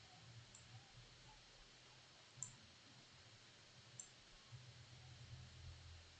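Faint computer mouse clicks: three single clicks a second and a half or more apart, the middle one the loudest, over a faint low hum.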